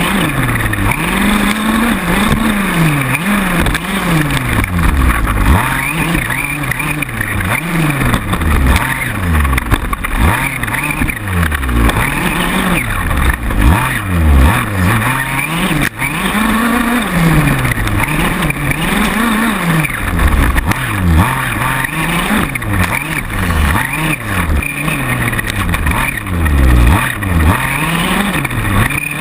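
Two-stroke gas engine of a large-scale RC buggy, heard from on board, revving up and dropping back again and again as the throttle is worked around the track, over a steady hiss.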